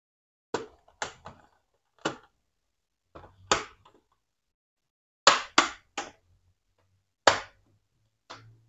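Sharp plastic clicks and snaps, about ten spread out, as the clips of an HP laptop's plastic case are pried apart with an opening tool; the loudest snaps come a little past halfway.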